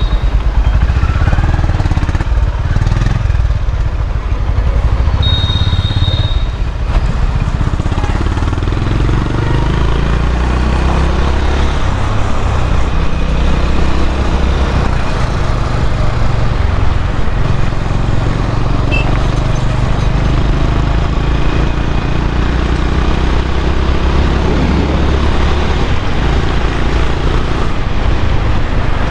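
Motorcycle being ridden on the road: engine and road noise with a heavy low rumble throughout, and a short high beep about five to six seconds in.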